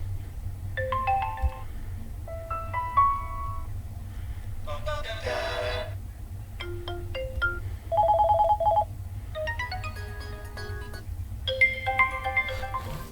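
Vivo X90 Pro default ringtones playing through the phone's loudspeaker: short melodic phrases of bright electronic notes separated by brief pauses, the pattern changing from phrase to phrase, over a steady low hum.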